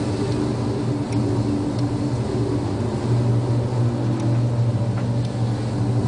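A ship's engines and machinery droning steadily: a low hum with a few faint clicks.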